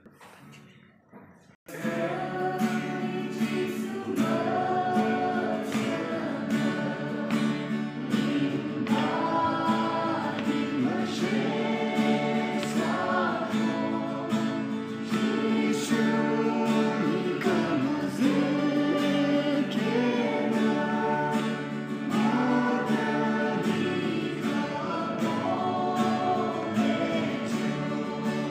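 A church choir of women's and men's voices singing together, accompanied by a strummed acoustic guitar. The singing and guitar come in strongly after a quiet first second and a half.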